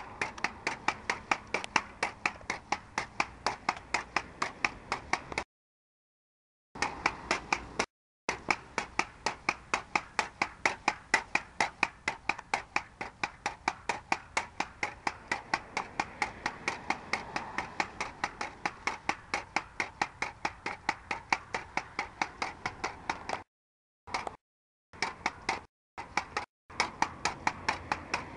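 Pogo stick bouncing steadily on asphalt, a sharp knock with each bounce about two to three times a second. The sound drops out completely a few times for a moment.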